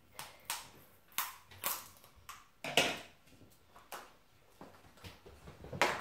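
Scattered sharp plastic clicks and crackles, about eight in all, from small plastic surprise-egg capsules and toys being handled and opened; the loudest comes near the end.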